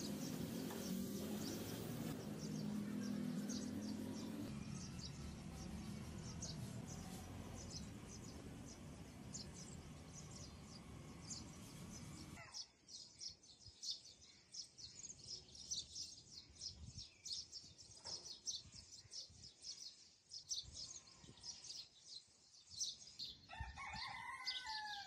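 Small birds chirping in quick, repeated high notes, with a rooster crowing near the end. A steady background hiss drops away about halfway through.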